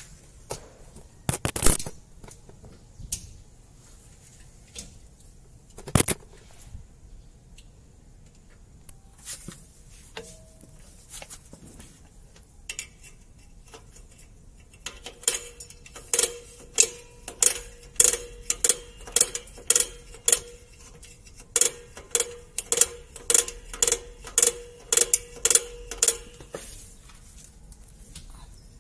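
Drum brake's star-wheel adjuster turned notch by notch with a flat screwdriver through the backing plate, tightening the brake shoes out toward the drum: a steady run of sharp metallic clicks, about two or three a second, each ringing briefly through the brake drum. A couple of single metallic knocks come first, near the start.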